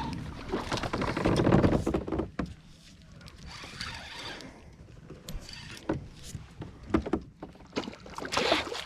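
Handling noise and water movement on a fishing kayak while a hooked bass is fought: a noisy stretch in the first two seconds, then scattered sharp knocks and clicks against the hull.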